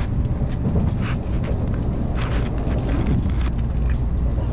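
Steady low rumble of a Shinkansen bullet train's cabin while it runs, with a few light clicks and rustles on top.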